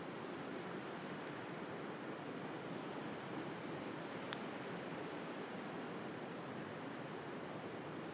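Steady wash of sea waves with a wood bonfire crackling: a few sharp pops, the loudest about four seconds in.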